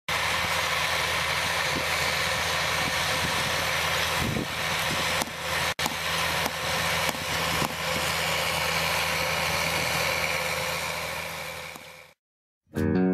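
Case IH Magnum 335 tractor's six-cylinder diesel engine running steadily under load while pulling a John Deere 1770NT corn planter across the field. The sound drops out for a moment about halfway and fades out near the end.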